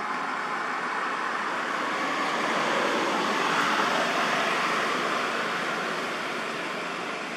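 Rushing noise of passing road traffic, a vehicle swelling to its loudest a little past the middle and then fading.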